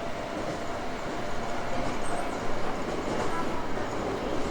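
Toei 5300 series subway train running, with steady wheel-on-rail rolling noise heard from inside the car.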